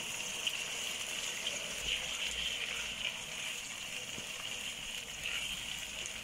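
Chicken pieces in chili oil sizzling steadily in a hot pan as plain water is poured in and a spatula stirs them.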